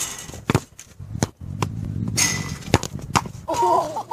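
A football being kicked: several sharp thuds spread over a few seconds, over a rushing noise.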